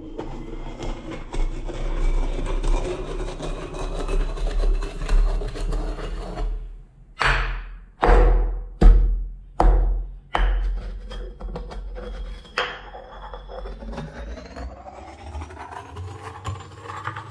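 Pestle grinding in a mortar, then a run of about five heavy pounding strokes in three seconds and a single strike a little later, as something hard such as candy is crushed. A faint tone rises slowly in pitch over the last few seconds.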